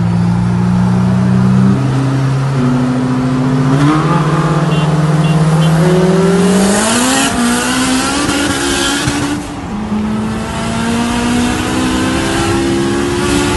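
Cars accelerating at full throttle side by side in a roll race, heard from inside one of the cars. The engine note climbs through the gears, dropping back at several upshifts.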